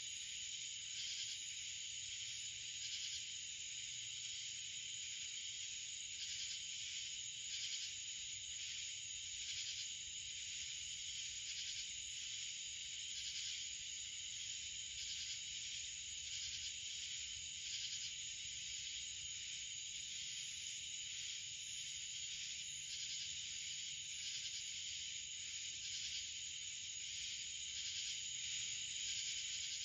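A steady, high-pitched chorus of insects with a faint, fast pulsing.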